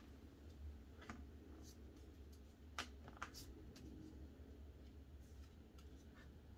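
Faint soft clicks and slides of Pokémon trading cards being moved one by one from the back to the front of a small stack in the hands, over a low steady room hum. The two strongest clicks come close together about three seconds in.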